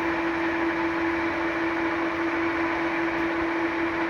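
Lansing Model G-20 engine lathe running in low gear: a steady mechanical hum with one constant whine over a noisy gear-drive wash.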